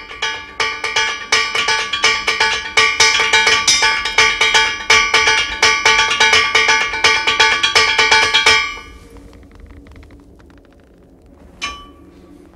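Metal percussion struck rapidly and evenly, ringing on the same few pitches, then cutting off suddenly about two-thirds of the way through. A single ringing strike follows near the end.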